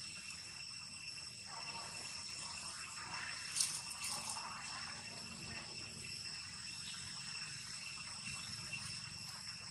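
Steady chorus of insects holding several unbroken high-pitched tones. A single sharp click comes about three and a half seconds in.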